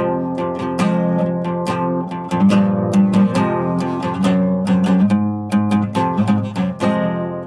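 Instrumental music on a plucked string instrument: notes picked in quick succession, several a second, over ringing low notes.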